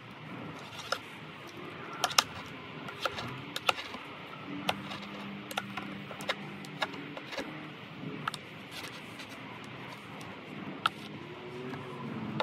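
Scattered sharp clicks and taps, about twenty of them, from hands working along the hinge line of a carpet-covered plywood platform.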